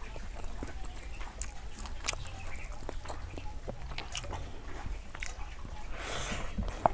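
Eating rice and curry with the fingers from a steel plate: small wet clicks as the rice is mixed and squeezed by hand, then chewing and mouth sounds as a handful goes into the mouth near the end. A low steady rumble runs underneath.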